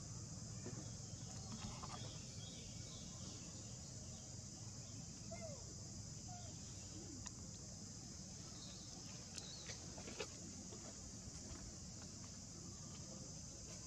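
Insects trilling steadily in a high, even chorus over a low background rumble, with a few faint short chirps near the middle and a few faint clicks about two-thirds of the way through.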